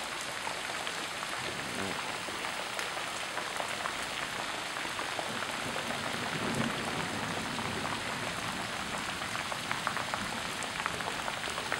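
Flash-flood water rushing down a paved street in a steady hiss, with scattered sharp clicks of cobbles and rocks being washed along the road and knocking together, more of them near the end.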